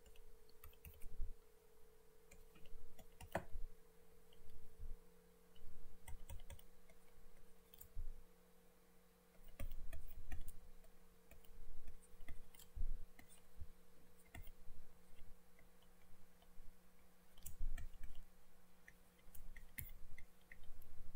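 Stylus on a pen-tablet or touchscreen while handwriting: irregular light clicks and taps as strokes are made, with a faint steady hum underneath.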